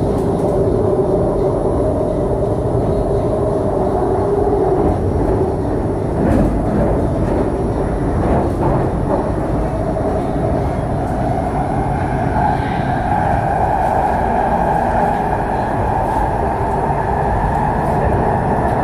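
Cabin noise of a CRRC Sifang Type B metro train running at speed on an elevated line: a steady rumble of wheels on rail with a whine that moves higher about halfway through.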